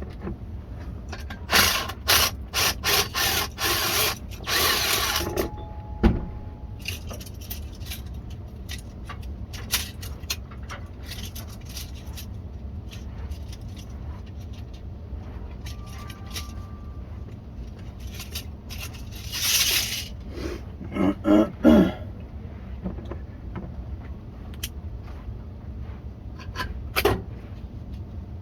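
Tool work on a cast-iron drain pipe: short bursts of scraping and clatter, busiest in the first few seconds and again around twenty seconds in, over a steady low hum.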